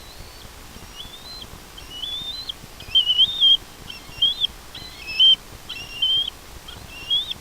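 Bald eagle calling: a series of high, thin whistled notes, about one a second, each rising slightly in pitch.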